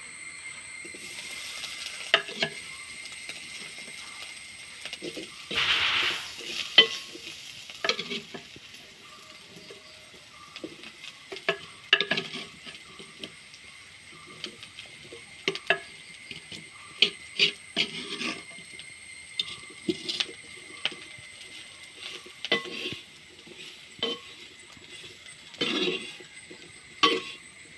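Boiled jackfruit seeds being stirred in a pan of hot coconut oil and crushed dried chillies: a spoon scraping and knocking against the pan over a light sizzle. The sizzle swells louder about six seconds in.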